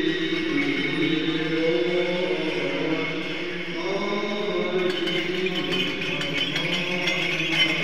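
Male voices singing Byzantine chant: a slow melody of long held notes moving over a steady lower drone note.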